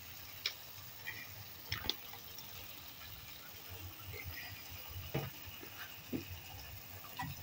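Chicken in a thick, sticky sweet sauce simmering in a frying pan: a quiet steady bubbling with a few short pops and clicks.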